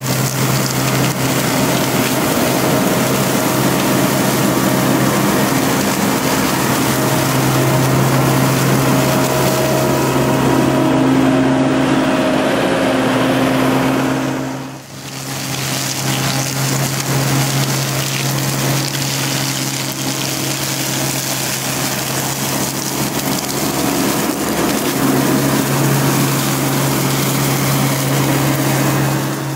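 A Mecalac carrier's diesel engine running under load, driving a Herder hydraulic flail mower head whose spinning rotor whirs and shreds grass and brush, a steady low hum under a loud hiss of cutting. The sound dips briefly about halfway through, then resumes.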